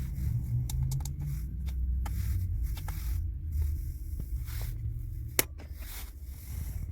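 Handling noise: irregular scraping and clicking over a low rumble, with one sharp click about five and a half seconds in.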